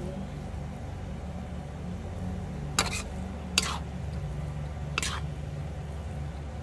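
Metal spatula stirring and tossing glass-noodle stir-fry in a metal wok, with three sharp clanks of the spatula against the wok, the middle one the loudest. A steady low hum runs underneath.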